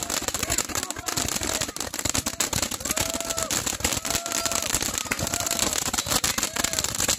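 Hand-held bundles of roman-candle firework tubes firing together, a dense run of pops and crackling bangs with no let-up.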